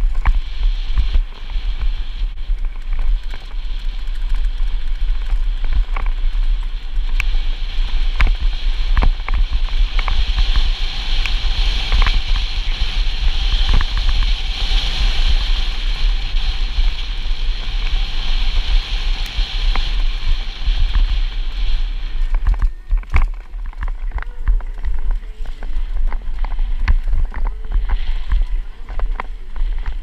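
Downhill mountain bike rolling fast over a dirt trail, heard from a camera on the rider. Wind rumbles steadily on the microphone, and the bike rattles with sharp knocks over bumps and rocks. A steady hiss runs through the middle stretch.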